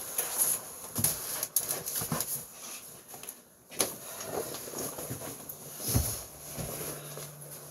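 Knocks, clicks and rustling of household items being handled and set down, with an irregular run of small thumps and one louder thump about six seconds in. A faint low hum sets in near the end.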